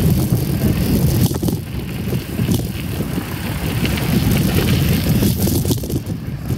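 Mountain bike riding along a gravel trail: a steady, uneven rumble of tyres on gravel and wind on the microphone, with a couple of small knocks early in the ride.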